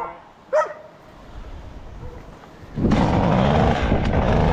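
A two-stroke chainsaw comes in loud and steady about three seconds in, after a quieter low engine rumble.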